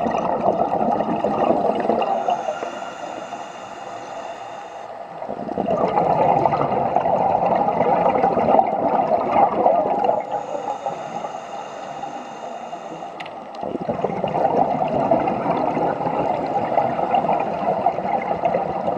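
Scuba diver's regulator breathing heard underwater: three long, loud bursts of bubbling exhalation, separated by two quieter inhalations with a faint high hiss from the regulator.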